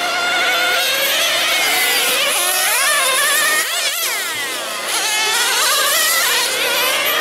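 Several radio-controlled nitro sedans' small two-stroke glow engines running at high revs, their high-pitched notes rising and falling as the cars accelerate and brake. About four seconds in, one car passes close by and its pitch sweeps downward.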